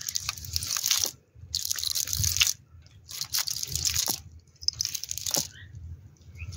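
Wet cast net rustling and crackling as it is handled on the grass, in four bursts of about a second each with a few sharp clicks.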